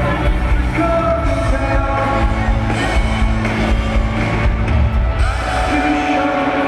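Indie rock band playing live, with a lead singer holding sustained notes over bass and drums. Near the end the low bass drops out.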